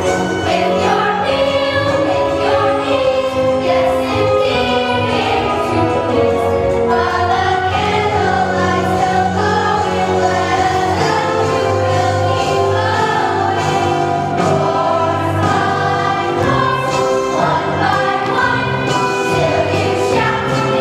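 Choir singing with instrumental accompaniment: a group of young voices holding sustained notes over a steady bass line.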